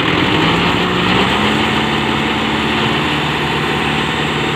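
Kubota MU5501 tractor's four-cylinder diesel engine running steadily while working a cutter machine through straw. Its pitch climbs a little in the first second, then holds.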